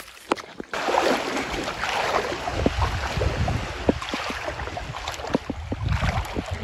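Rushing river water with wind buffeting the microphone and a few scattered knocks, coming in suddenly under a second in.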